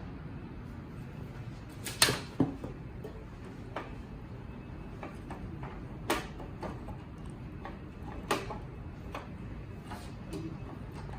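Sharp knocks and clicks from a paper drilling machine being handled and adjusted, the loudest two close together about two seconds in and further knocks around six and eight seconds in, over a steady low hum.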